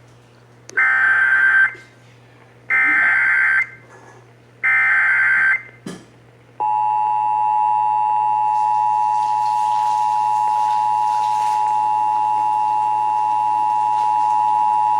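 Emergency Alert System tones on AM radio: three short bursts of SAME digital header data, each about a second long, then the steady two-tone EAS attention signal (853 and 960 Hz together) starting about six and a half seconds in and held for about eight seconds before cutting off.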